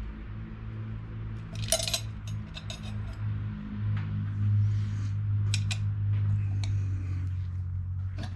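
Hand tools and bolts clinking against the metal rear hub as its brake disc is unbolted: a few sharp metallic clicks over a steady low hum.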